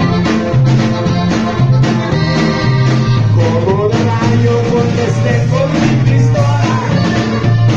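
Norteño band playing a corrido live, with accordion and bajo sexto over a bass line that steps between notes on a steady beat.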